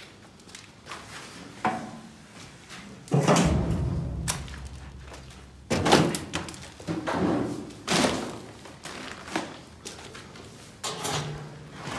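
Heavy thuds and knocks from someone clambering over rubble and scrap, the loudest about three seconds in with a low rumble dying away after it, and further knocks near the middle and end.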